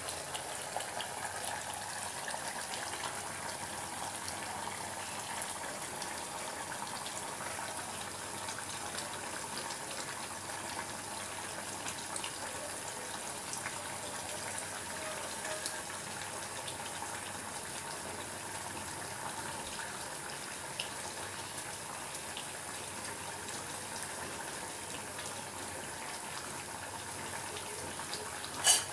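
Chicken frying down in oil in a pan: a steady sizzle with faint crackles, and a single clink near the end.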